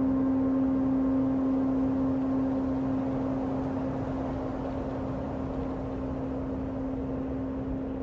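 Background ambient music: one steady, unchanging low drone tone over a soft hiss, fading slightly.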